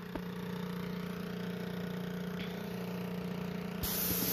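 Titan electric airless paint sprayer running with a steady hum. Near the end, the spray gun is triggered and lacquer sprays from the tip with a loud hiss.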